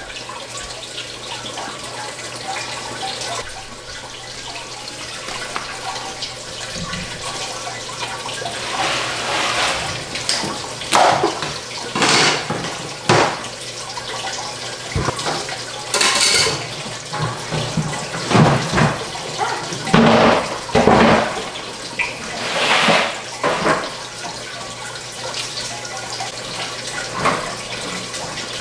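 Water trickling and splashing inside running aeroponic tower gardens, with a faint steady low hum under it. From about nine seconds in, louder knocks and splashes come and go as a tilted plastic tower and its plants are handled.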